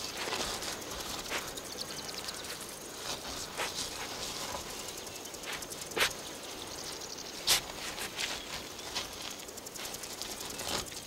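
Honey badger digging and sniffing at hard ground for buried dung-beetle balls: scattered short scrapes and snuffles, with two sharper clicks about six and seven and a half seconds in, over a steady high chirring of insects.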